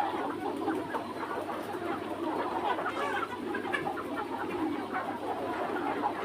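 A flock of free-range red roosters and hens clucking and chattering, with many short overlapping calls.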